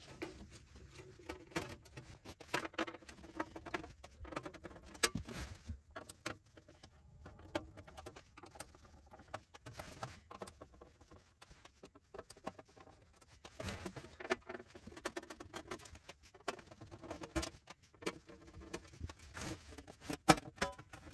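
Screwdriver turning out the screws of an AV receiver's metal cover: faint, irregular small clicks, ticks and scrapes of metal on metal as the screws are worked loose and handled.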